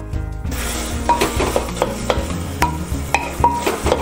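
Wooden ladle stirring and pressing potato curry in a metal pressure cooker, knocking and scraping against the pot several times with a short ring after some knocks, over a light sizzle of the frying masala.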